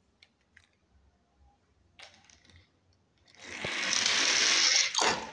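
Small die-cast toy car rolling fast down a slide: a loud, even whir of its wheels builds over about a second and a half and stops abruptly with a knock near the end. Faint clicks of the toy being handled come first.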